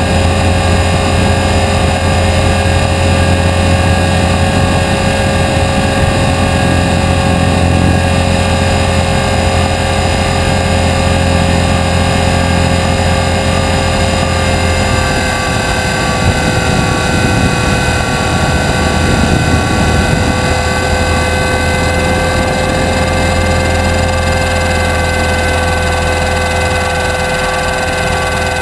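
500-size RC helicopter in flight, heard from its onboard camera: a steady mechanical whine of several held tones over a low drone, with the pitch shifting slightly about halfway through.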